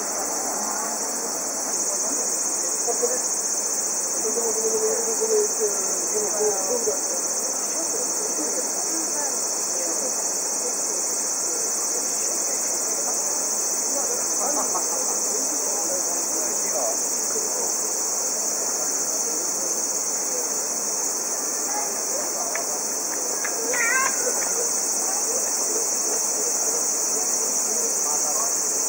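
Insects droning steadily in a continuous high-pitched drone.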